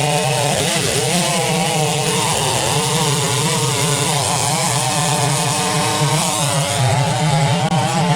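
Big two-stroke chainsaw running a 36-inch bullnose bar, cutting through a large log under load. The engine pitch sags and recovers several times as the long bar bogs in the wood.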